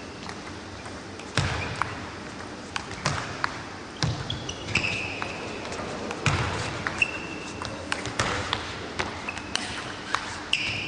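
Table tennis rally: the celluloid ball clicking sharply off the bats and the table at an irregular pace, with heavier thuds of footwork and brief high squeaks of shoes on the court floor.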